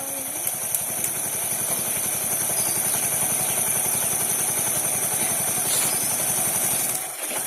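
Single-cylinder motorcycle engine idling steadily, running with its no-spark fault repaired by refitting the magneto magnet; the sound dips briefly near the end.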